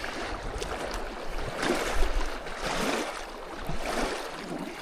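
Small waves lapping and splashing at the reservoir's edge in uneven swells.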